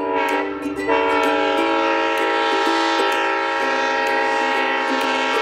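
Diesel locomotive air horn sounding one long, steady, chord-like blast.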